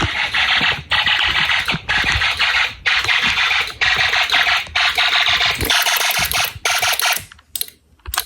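Snap Circuits fire alarm system sounding a harsh buzzing alarm tone in pulses of about a second with brief gaps, cutting off about seven seconds in. A few sharp clicks follow near the end.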